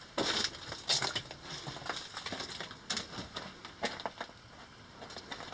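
Footsteps crunching over loose rock and gravel, uneven, with the two loudest steps in the first second and lighter ones after.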